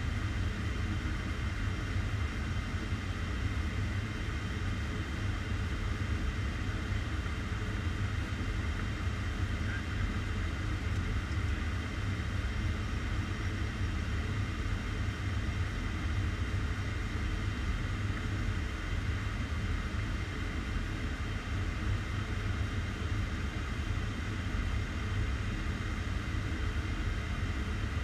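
Steady in-flight noise inside a Boeing 757 flight deck on approach: a low rumble with an even hiss above it, unchanging throughout.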